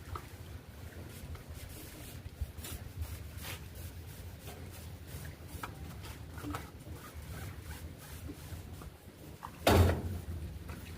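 Steady low rumble with scattered, irregular light clicks, and one loud, short thump about ten seconds in.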